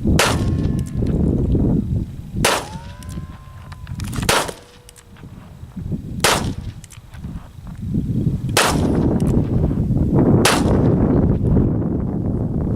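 Harrington & Richardson Model 900 .22 long rifle revolver with a 2.5-inch barrel firing six single shots, about two seconds apart, each a sharp crack.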